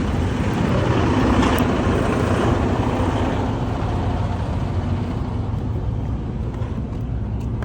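A motor vehicle running close by: a steady low engine hum with a rushing swell about a second or two in that slowly eases off.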